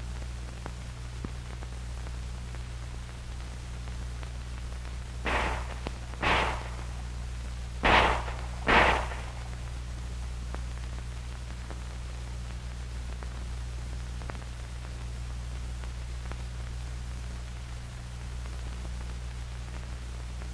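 Four .45 M1911 pistol shots fired as two quick pairs, the shots in each pair about a second apart. Under them runs the steady hum and hiss of an old film soundtrack.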